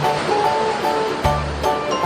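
Background music with held notes and a bass line, laid over the steady wash of sea waves on a beach.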